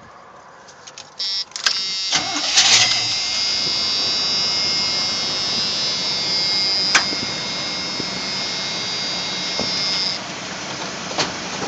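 Old Chevrolet pickup's engine cold-started, heard from inside the cab: a brief burst of cranking about a second in, then it catches and keeps running. A steady high whine rides over the engine and stops about ten seconds in, after which the engine runs on a little more quietly.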